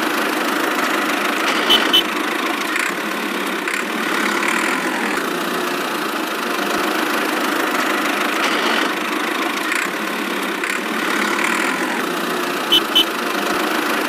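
Small electric motor and plastic gearbox of a homemade miniature tractor running steadily, driving its rotary blade. There are two quick sharp clicks about two seconds in and again near the end.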